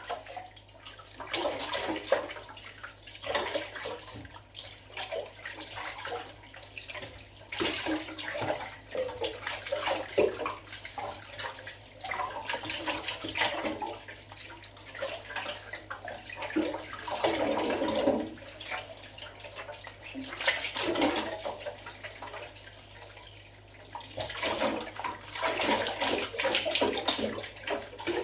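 Water sloshing and splashing in a basin in uneven bursts as raw tripe (matumbo) is washed and rubbed by hand.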